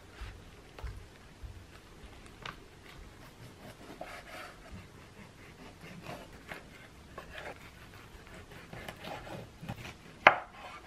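Hands pressing and rolling cabbage leaves on a wooden cutting board, then a kitchen knife slicing through the cabbage roll with soft knocks of the blade on the board. The loudest, sharpest knock comes near the end.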